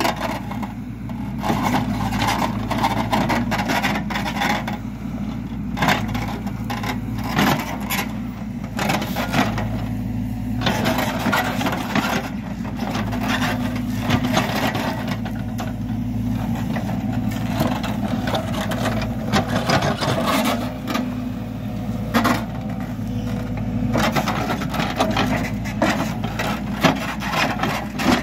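Hidromek backhoe loader's diesel engine working under load, its revs rising and falling every few seconds, with scraping and clattering of earth and stones against the steel bucket.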